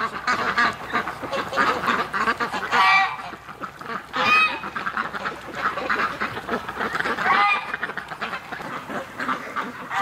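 A flock of domestic ducks calling without a break, a dense chatter of quacks, with louder single calls about three, four and a half and seven and a half seconds in.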